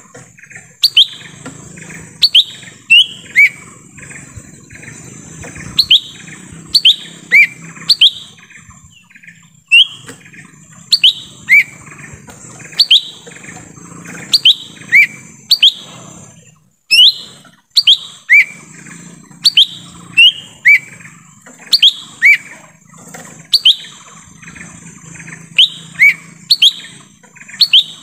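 Lesser green leafbird (cucak ijo mini) calling: sharp, loud down-slurred whistled notes, often in quick pairs, repeated about once a second, the song used as a lure call to draw in wild birds. A steady high hiss runs underneath.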